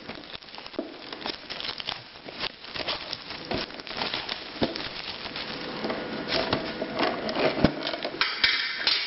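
A Pokémon card tin being opened by hand: plastic wrapping crinkling and rustling, with scattered small clicks and taps. The rustling grows denser near the end.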